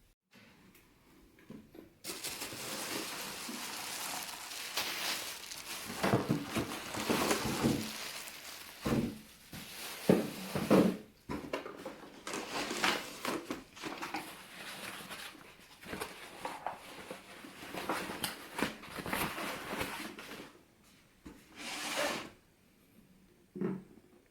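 Irregular rustling, scraping and knocking of things being handled, with a cluster of louder knocks partway through and a few separate knocks near the end. There is no steady motor sound.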